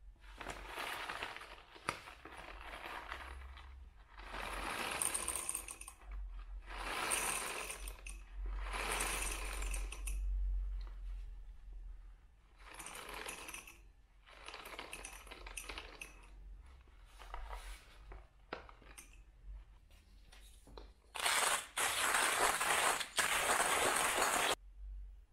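Whole coffee beans poured in short spurts from a paper bag into a small wooden cup, rattling against the wood, about seven pours with pauses between them while the dose is weighed. Near the end comes a louder, denser rattle of about three seconds.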